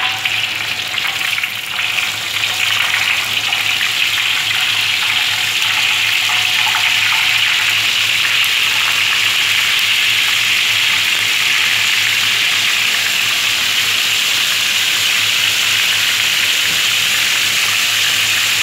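Slices of salt-and-lemongrass-marinated meat frying in hot oil in a wok: a steady, even sizzle.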